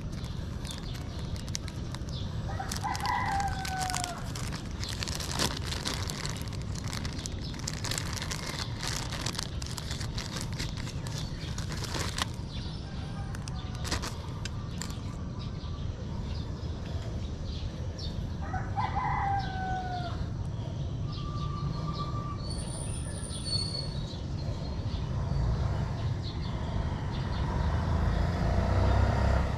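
A rooster crowing twice, about sixteen seconds apart, over a steady low rumble. A run of sharp clicks fills the first half, and the rumble grows louder near the end.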